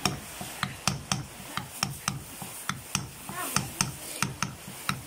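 Light, quick hammer taps on a metal drift, about three a second, easing a new piston into a Kia Picanto disc brake caliper.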